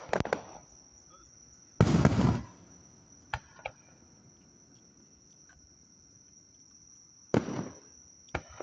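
Fireworks shells bursting: a loud boom about two seconds in, a couple of small pops after it, and another burst near the end. Underneath, insects chirr steadily at a high pitch.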